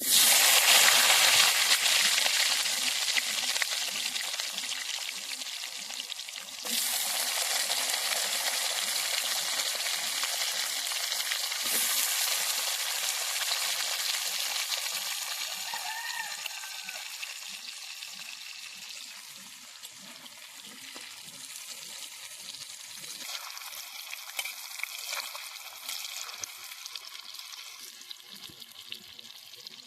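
Pieces of kohlrabi frying in hot oil. The sizzle starts suddenly and loud, then slowly fades, with two fresh sudden surges about seven and twelve seconds in.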